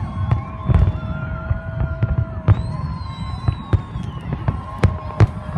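Fireworks display bursting in a rapid, irregular series of sharp bangs over a continuous low rumble. High whistling tones run over it, one falling slowly in pitch.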